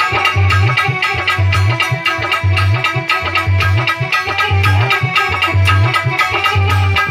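Indian music with tabla and fast hand percussion over a deep bass beat that lands about once a second, with sustained melody tones above.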